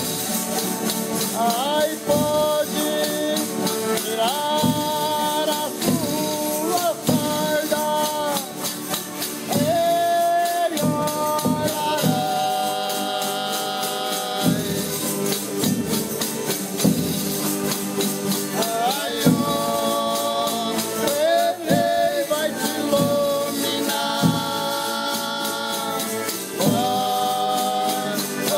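Folia de Reis company singing: several voices hold long notes in harmony, phrase after phrase, many of them sliding up into higher notes, over the steady jingle of tambourines.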